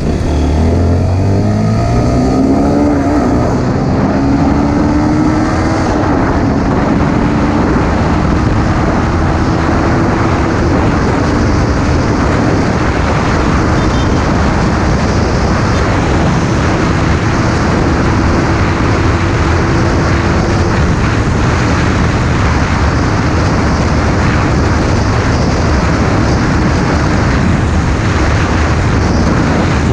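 Honda Supra GTR 150 Fi's single-cylinder engine pulling at full throttle through the top gears, its pitch stepping up in the first few seconds and then climbing slowly, under heavy wind rush at highway speed. Past about two-thirds of the way in, the engine note is lost in the steady wind noise.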